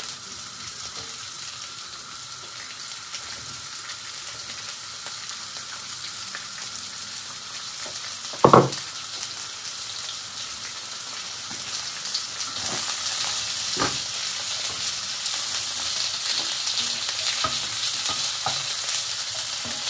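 Stir-fry vegetables (mangetout, red pepper and spring onions) sizzling in a non-stick frying pan on a gas hob, the sizzle steadily growing louder. One loud knock comes about eight and a half seconds in, with a few lighter knocks a few seconds later.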